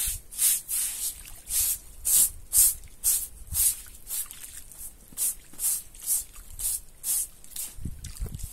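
A plastic broom scrubbing and swishing through muddy water in a small cement-lined pond, in short strokes about two a second.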